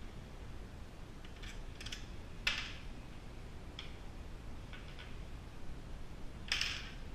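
A handful of light, sharp clicks and knocks from small parts and tools being handled, with two louder clacks, one about two and a half seconds in and one near the end, over a steady low hum.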